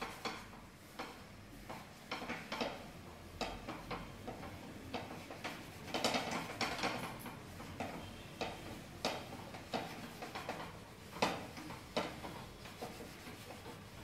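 Irregular light clicks and taps of a utensil against a flat metal pan on a gas stove, a few a second, some louder than others.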